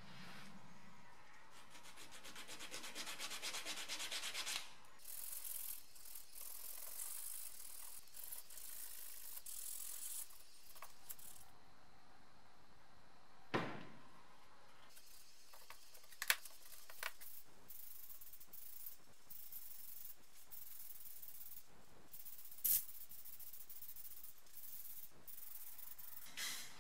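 Hand sanding on a plastic engine cooling fan blade: quick rubbing strokes a few seconds in, then scratchy rubbing on and off. Four sharp knocks are spread through it.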